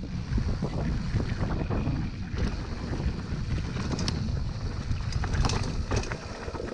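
Wind buffeting the microphone over the rumble of mountain-bike tyres on a rough dirt trail, with scattered clicks and knocks of the bike rattling over bumps.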